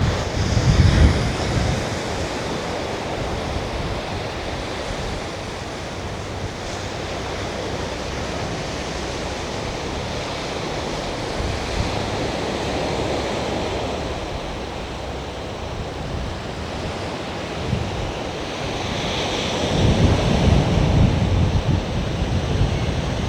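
Sea waves washing onto the shore in a steady rush, with wind buffeting the microphone about a second in and again near the end.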